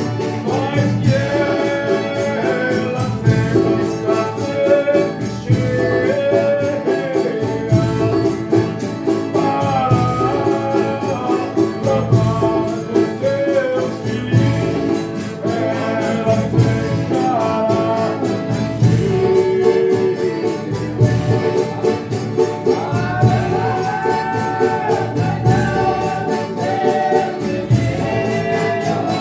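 Folia de Reis company singing its thanksgiving verses for a meal, several voices together over guitar, tambourine and a steady low drum beat.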